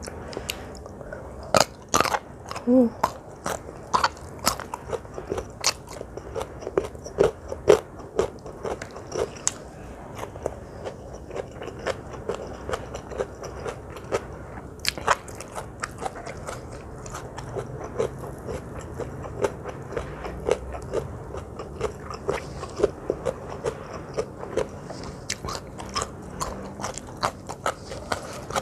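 Close-miked mukbang eating: loud, crisp bites and crunches through the first several seconds, then steady chewing of a mouthful at about two chews a second.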